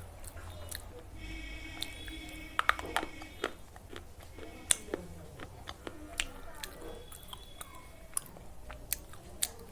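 Slate pencils being bitten and chewed: sharp, irregular crunches and snaps close to the microphone.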